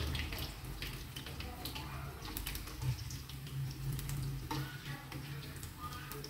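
Metal ladle scraping and tapping against a steel wok as food is stirred: a scatter of light clicks and scrapes over a low steady hum.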